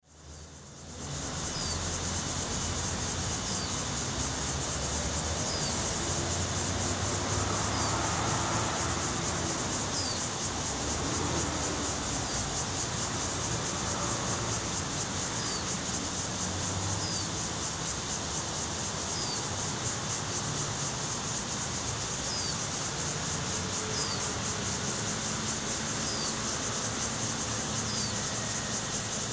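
Insects calling in a steady high-pitched chorus with a fast pulsing buzz, and a faint short chirp repeating every couple of seconds. A low rumble sits underneath.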